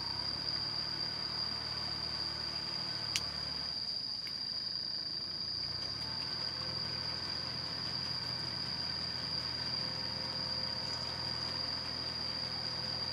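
Engine of a small cage-wheeled paddy tractor running steadily as it works through a flooded rice field. A steady high insect drone sounds over it, with a single sharp click about three seconds in.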